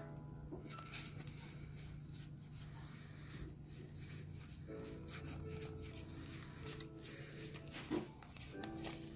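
Pokémon trading cards being flipped through and sorted by hand: a run of light card clicks and slides, with a sharper snap near the end. A steady low hum runs underneath.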